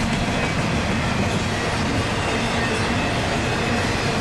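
Union Pacific freight train's intermodal container cars rolling past at close range: steady noise of steel wheels on the rails.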